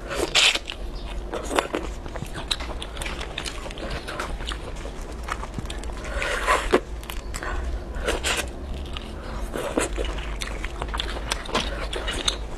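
Boiled crayfish shells crackling and snapping as gloved hands peel them, mixed with biting and chewing on the meat; a run of small clicks with several louder cracks scattered through.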